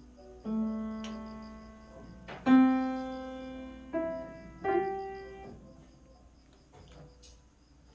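Background piano music: a few slow, single struck notes that ring and fade, the loudest about two and a half seconds in, dying away in the last few seconds.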